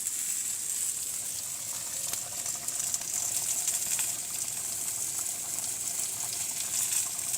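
A pot of chicken pelau sizzling in one pot: a steady hiss with a few sharp pops.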